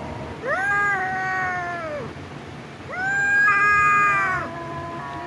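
Kittens meowing while play-fighting: two long, drawn-out meows, each about a second and a half, rising at the start and falling off at the end, with fainter calls between them.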